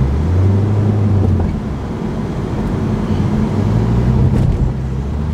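Nissan Altima sedan driving, heard from inside the cabin: a steady low engine drone over road and tyre noise, its pitch stepping down about a second and a half in and rising again later.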